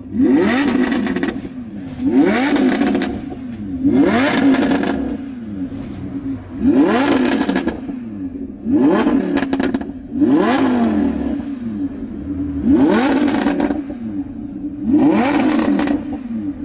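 Lamborghini Huracán LP610-4's 5.2-litre V10 breathing through an Fi Exhaust valvetronic cat-back, free-revved while parked: about eight sharp blips roughly two seconds apart, each rising in pitch and falling back to idle.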